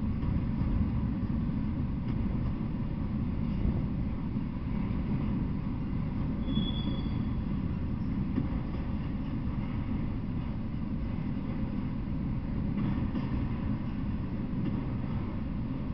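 Freight train of enclosed autorack cars rolling past, a steady low rumble of wheels on rail, with a brief high squeal about six and a half seconds in.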